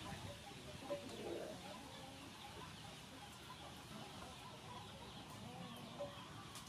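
Chickens clucking faintly, with a few short clucks about a second in and again near the end.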